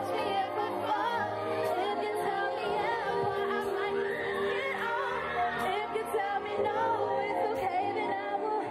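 Music with a woman singing a melodic line over the band.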